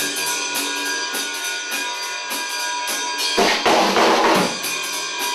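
Rock music with a full drum kit playing a steady beat, cymbals ringing over sustained guitar and bass tones, with a louder crash-like surge about three and a half seconds in.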